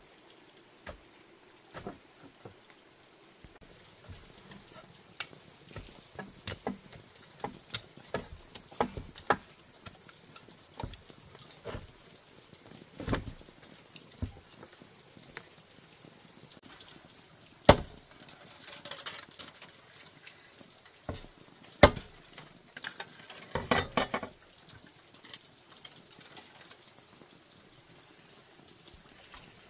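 Irregular clicks and knocks of handwork, with a few louder knocks and a quick run of clatter about two-thirds of the way through.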